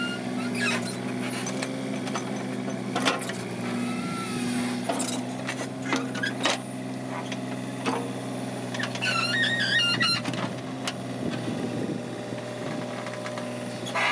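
Mini excavator's engine running steadily while its bucket digs into soil, with scattered knocks and scrapes of the bucket and earth.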